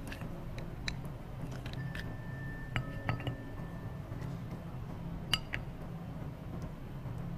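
Tableware clinking a few times, sharp and short, one clink ringing on briefly about two seconds in, over quiet background music.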